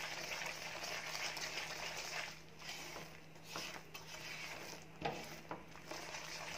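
Ghee-rich Mysore pak mixture of gram flour and sugar sizzling and bubbling in a pan as a silicone spatula stirs it. It goes quieter for about a second around two and a half seconds in, with two soft knocks about five seconds in.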